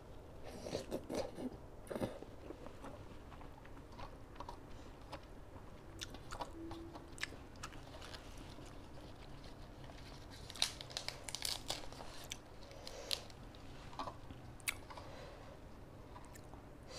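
A person chewing a mouthful of rice noodles and salad, with crunching and scattered small clicks and crackles of eating, a few louder ones about two-thirds of the way in.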